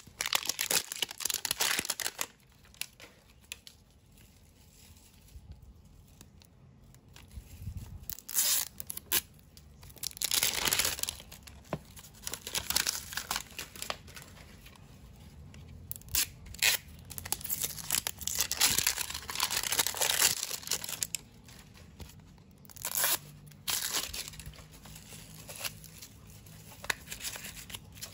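Plastic and paper toy packaging being torn open and crinkled by hand, in repeated bursts of a second or more with short pauses between.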